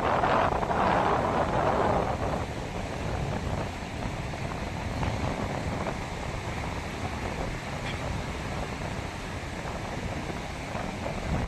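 Ocean surf: a wave breaks and washes loudly for the first two seconds or so, then settles into a steady hiss of foam. A low rumble of wind buffets the microphone underneath.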